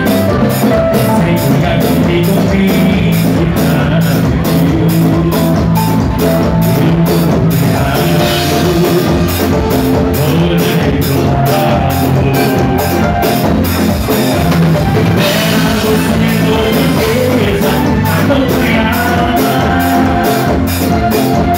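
Live band playing with a steady drum-kit beat, electric guitar and keyboard, with a harmonica played against the microphone carrying the held lead notes.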